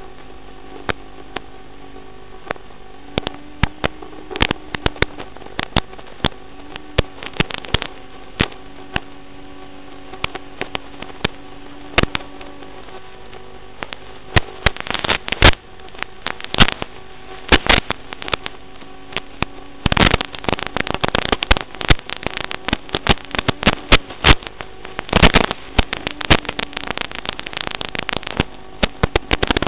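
Steady electrical hum with crackling clicks and pops on the audio of an analog FPV video link. The crackling grows much denser about halfway through, as the link breaks up with interference.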